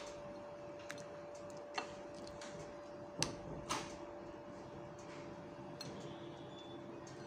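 A metal spoon clicking against a ceramic bowl and plate while scooping tuna spread and spreading it on bread: several sharp clicks, the loudest about three seconds in. A faint steady hum runs underneath and drops in pitch at about the same point.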